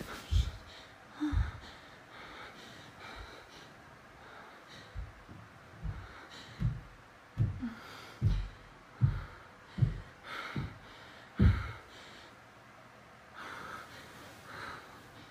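A person breathing hard and gasping close to a phone's microphone: about a dozen short, sharp breaths at uneven intervals, most of them bunched together in the middle.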